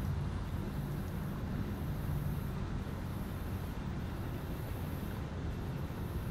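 Steady low engine rumble over a wash of background noise, easing off slightly partway through.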